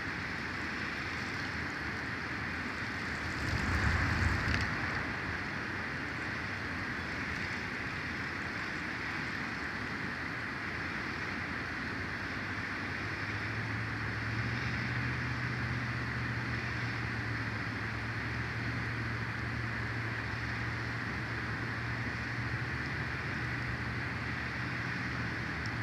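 Steady hiss of wind through pine branches on an outdoor microphone, with a gust buffeting the microphone about four seconds in. From about halfway, a low steady engine hum joins it.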